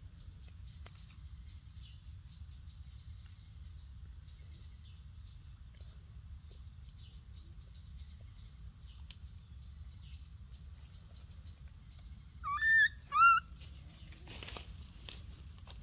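Faint high chirping of forest birds throughout, and about three-quarters of the way through two short, loud calls, each rising then falling in pitch. A brief rustle of dry leaves follows.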